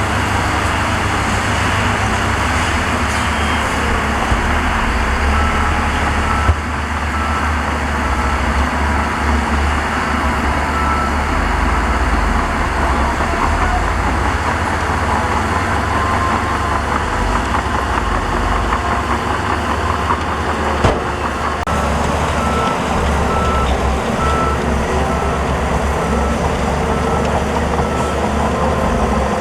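Heavy diesel earthmoving machinery running steadily with a deep engine rumble. In two stretches a reversing alarm beeps at an even pace, and two short knocks stand out.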